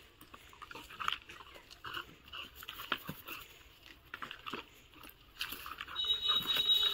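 American Pit Bull Terrier puppy growling in short, irregular snatches as it grips and tugs a rubber tyre strip swung around it during grip training.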